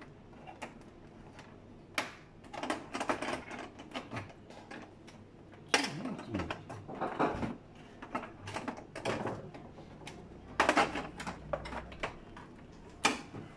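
Plastic cover panels of a Fuji Xerox DocuPrint CM225 printer being worked loose by hand: irregular clicks, knocks and scrapes of plastic, with sharper clacks about six seconds in and again near eleven seconds.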